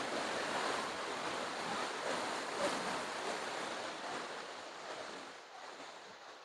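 Steady rush of water from a mountain stream and waterfalls in the gorge, fading away over the last couple of seconds.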